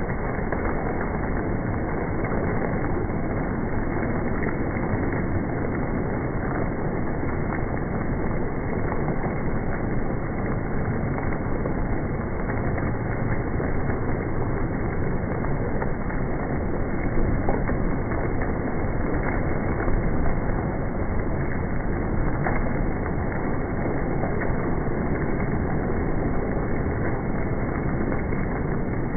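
Hail falling steadily: a dense, continuous clatter of hailstones striking parked cars and the ground, with a few louder individual hits partway through.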